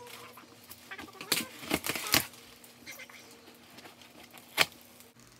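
Packaging being handled and opened: several sharp crackles and cracks, a quick cluster a little after a second in and a single loud crack near the end.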